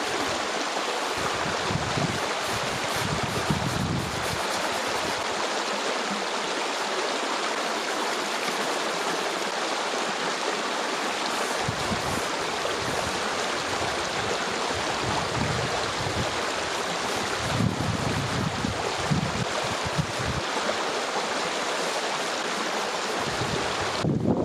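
Stream water flowing and rushing steadily, with a few low gusts of wind buffeting the microphone near the start and again about two-thirds of the way through.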